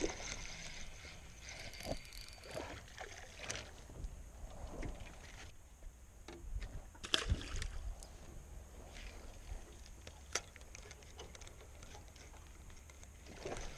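Handling noise in a small fishing boat: scattered knocks and clicks of a rod and spinning reel being handled while a small bass is unhooked, with light water sounds. The sharpest clicks come about seven and ten seconds in.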